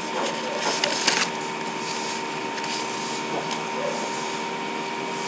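Steady background hiss and hum with a faint steady tone, and a brief burst of noise about a second in.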